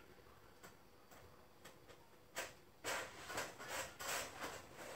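Faint rustling and rubbing of hands working over the skin and clothing of a leg during manual knee treatment: a few soft clicks, then a run of short swishes in the second half.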